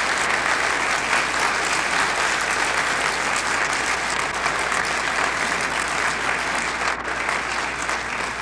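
A large hall full of seated delegates applauding: dense, steady clapping that keeps on evenly without building or fading.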